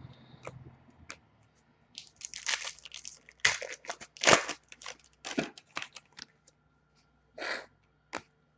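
A hockey trading-card pack's wrapper being torn open and crinkled, in a run of short ripping and crackling bursts with a final tear and a click near the end.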